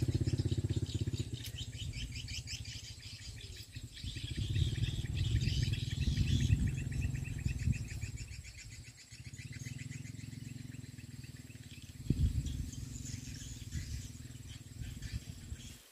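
Birds chirping in quick repeated trills over a low rumble that swells and fades, with a brief louder knock about twelve seconds in.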